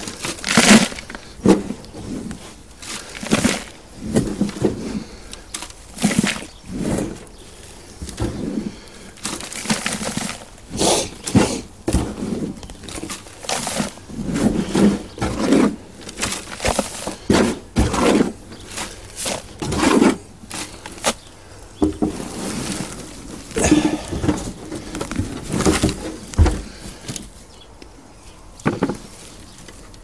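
Hands breaking apart and rummaging through the compost of a potato pot, an irregular run of crumbling and rustling noises.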